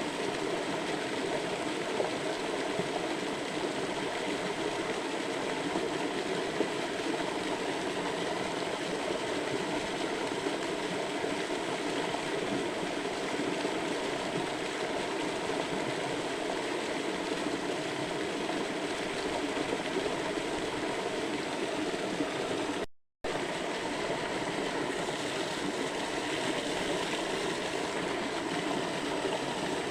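Steady rush of flowing stream water, even and unbroken except for a brief cut to silence about three-quarters of the way through.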